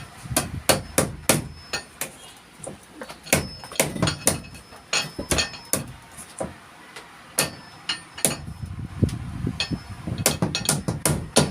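Hammer driving nails into wood: runs of quick, sharp blows with short pauses between them.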